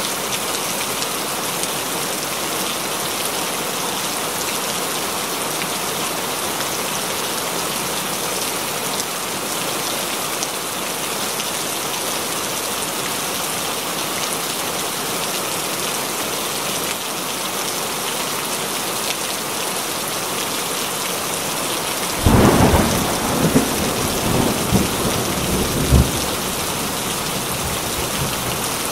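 Steady rain falling and splashing. About twenty-two seconds in, thunder breaks suddenly with a loud crack and rumbles on in several swells for about five seconds.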